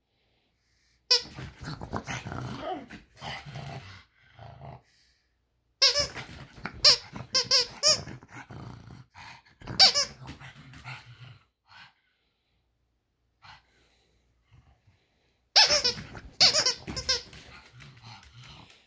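Plush hedgehog squeaky toy squeaking in quick runs while a pug growls at it. The sound comes in three bouts, about a second in, around six seconds in, and near the end, with quiet spells between.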